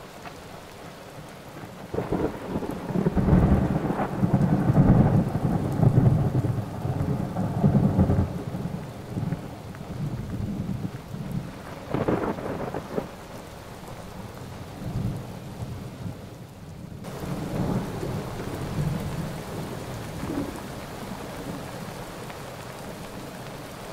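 Thunder rumbling over steady rain in a thunderstorm: a long low rumble starting about two seconds in, a sharper crack about halfway through, then softer rumbles.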